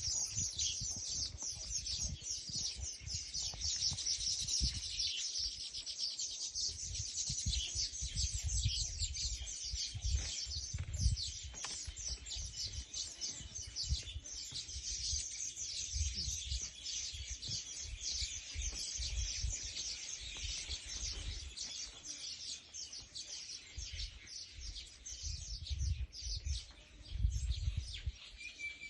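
Dense, continuous chirping of many small birds, a steady chorus of short high notes, over an uneven low rumble.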